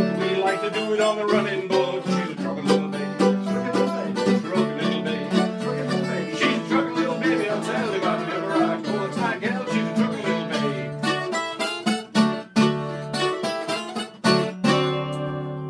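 Acoustic blues played live on acoustic guitar and mandolin, picked notes over a steady strummed backing. Near the end the playing breaks for a couple of strums, then a final chord is struck and left to ring and fade: the end of the song.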